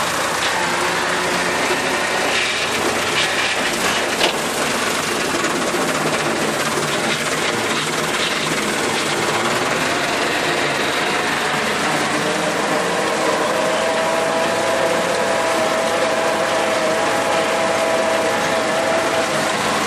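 Massey Ferguson 275 tractor's four-cylinder diesel engine running steadily under way, heard from the driver's seat, with mechanical rattling from the machine. There is one sharp knock about four seconds in, and a whine grows stronger in the second half.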